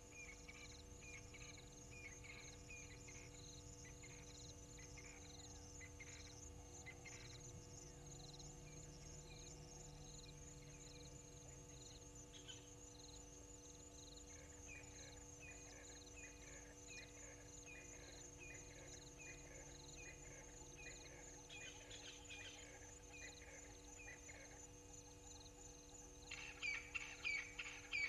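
Quiet dusk bush chorus: a steady high insect trill under repeated short bird calls, about two a second, then a louder, quicker run of calls over the last two seconds.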